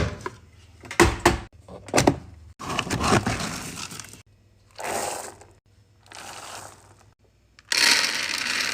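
Dry dog kibble being scooped and poured into bowls: a few sharp clacks in the first couple of seconds, then four rattling pours, the last the loudest.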